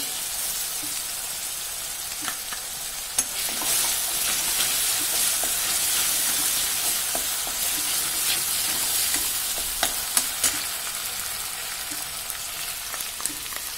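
Onion and garlic paste sizzling steadily in hot oil in an aluminium kadai. A metal spatula stirs it, scraping and clicking against the pan a few times.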